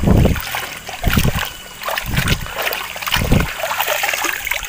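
A bunch of daun rende leaves being swished and dunked by hand in flowing stream water, splashing four times about a second apart over the steady rush of the stream.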